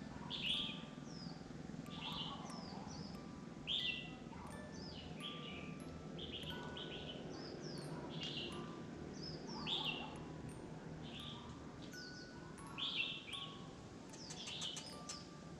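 Birds chirping: short, high, falling calls repeating about once a second, over a faint steady hum.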